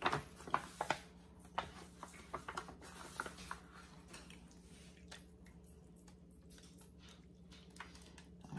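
Wet squishing and smacking of hands handling raw chicken breasts in marinade, a scatter of short sounds in the first few seconds that thins out after, over a faint steady hum.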